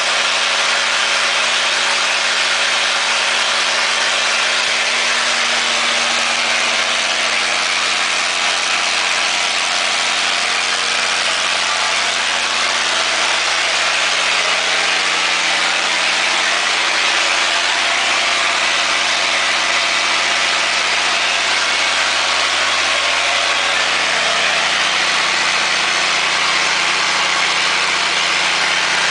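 Kohler 135 kW natural gas generator set running steadily at constant governed speed, its Cummins G-855 inline-six gas engine giving a loud, even drone: a steady low hum under a broad hiss, with no change in speed.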